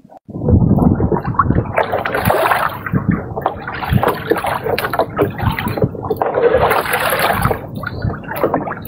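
Freshly caught fish and an eel flopping and splashing in shallow water on the floor of a wooden boat, with many short knocks against the planks. The splashing swells twice.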